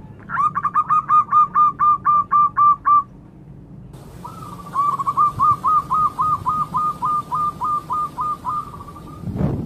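Zebra dove (perkutut) cooing: a rapid run of about a dozen short, evenly spaced notes, then after a pause a longer run of about eighteen notes ending on a drawn-out note. A brief low rustle or thump comes just before the end.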